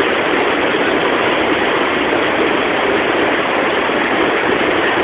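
Water rushing over a river weir: a steady, loud rush without breaks.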